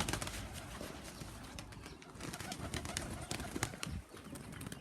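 Domestic pigeons cooing, with many scattered light clicks throughout.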